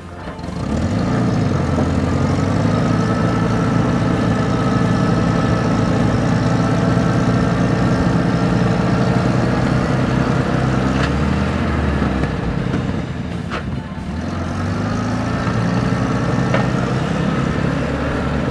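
Engines of a Toyota Surf and a GAZ-69 working under load as the Surf pulls the GAZ-69 out of deep mud on a tow strap. The engine sound swells about a second in and eases briefly about two-thirds of the way through.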